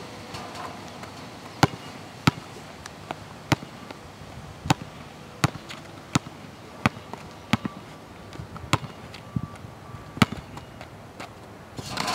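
Basketball bouncing on a hard court as a player dribbles: about a dozen sharp bounces, roughly one every two-thirds of a second, slightly uneven in pace.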